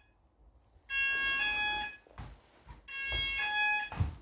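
Fire alarm sounder on its alert tone, the system's first-stage warning: an electronic two-tone signal that sounds twice, each pulse about a second long, stepping from a higher note down to a lower one, with a gap of about a second between pulses.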